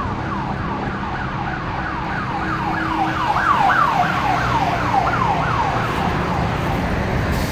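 Emergency vehicle siren on a fast yelp, sweeping up and down about three times a second, growing louder toward the middle and fading away near the end, over steady street traffic.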